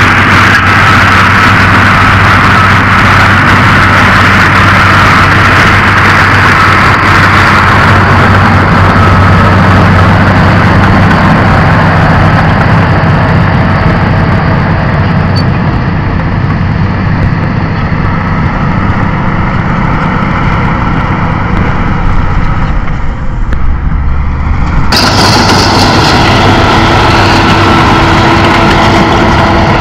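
Shantui SD16E crawler bulldozer's diesel engine running steadily and loudly under load as it pushes soil with its blade. The sound changes abruptly about five seconds before the end.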